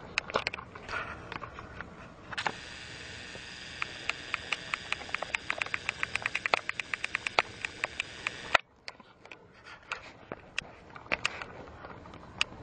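A small electric motor whirring steadily, with a ticking that speeds up, until it cuts off suddenly about two-thirds of the way in. Scattered clicks and knocks come before and after it.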